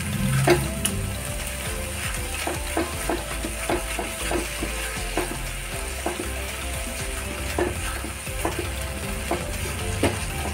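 Thick tomato-onion masala sizzling in oil in a non-stick frying pan on high heat, stirred quickly with a silicone spatula that scrapes the pan about twice a second. It is the bhunao stage, where the masala is roasted until done.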